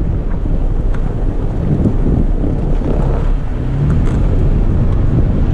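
Wind buffeting the microphone over the steady low rumble of a Toyota FJ Cruiser driving on a dirt road, with a few faint ticks. The engine note rises briefly a little before four seconds in.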